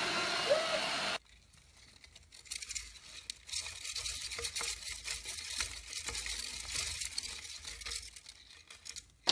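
A robot vacuum running with a steady whir for about the first second, then a sudden cut to faint scratchy rustling and light clicks from hamsters shifting in a wooden wheel on wood-shaving bedding.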